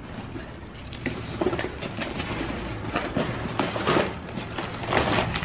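Cardboard box and its packing being rummaged through by hand: irregular rustling, scraping and light knocks as brake-kit parts, including a rubber brake hose, are pulled out.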